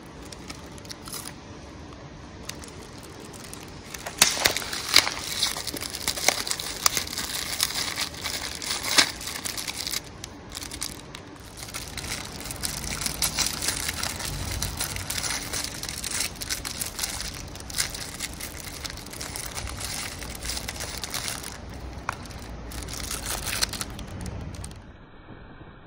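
Plastic wrapping on a pack of firecrackers crinkling and tearing as it is handled and opened by hand, with sharp crackles, louder and busier from about four seconds in.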